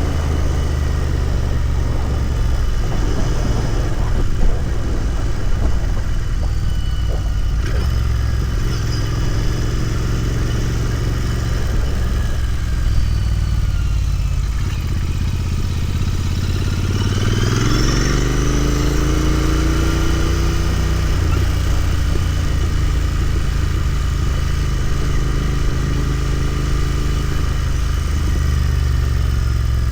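Royal Enfield Continental GT 650's 648 cc parallel-twin engine running steadily on the move. A bit past halfway it revs up as the bike accelerates, then settles into a steady cruise.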